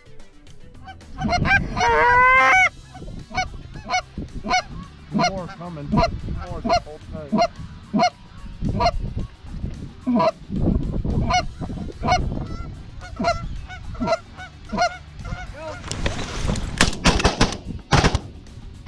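Canada geese honking and clucking in a rapid, steady run of short calls, loudest in a quick rising series about two seconds in. Near the end a burst of rushing noise and a sharp crack.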